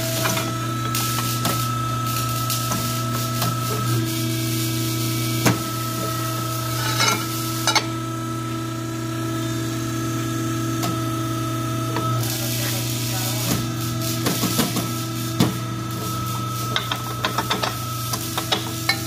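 Hydraulic exhaust-pipe bender running, a steady machine hum with a faint whine, while steel exhaust tubing is bent in its die. A few sharp metallic clicks and knocks, more of them near the end, come from the tubing being handled.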